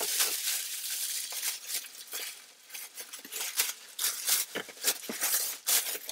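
Clear plastic packaging bag crinkling and rustling in irregular bursts as it is worked open and pulled off a backpack.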